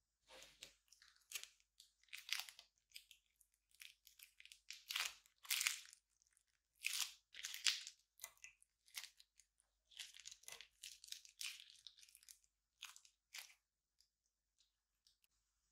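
Plastic piping bag being squeezed, giving irregular crinkling, crackling bursts as small round beads are pushed out of it onto clear slime. The bursts stop near the end.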